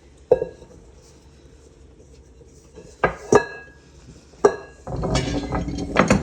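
Metal kitchen utensils clinking against a hard surface: four sharp, ringing clinks spaced apart, then about a second of rattling and scraping that ends in more clinks.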